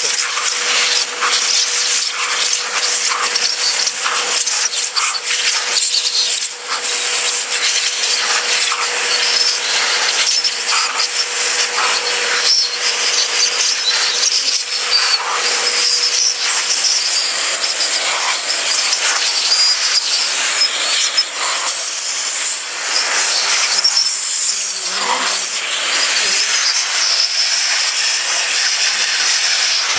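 Construction vacuum cleaner running in blow mode, a steady rush of air with a thin whine from the motor, blowing bees off honey-super frames.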